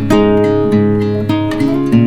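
Background music: acoustic guitar playing plucked and strummed chords, a new chord about every half second.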